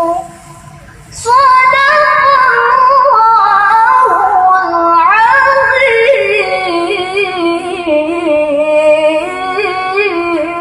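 A girl reciting the Quran in melodic tilawah style: long, ornamented phrases that slide and waver between pitches, starting after a short pause for breath about a second in.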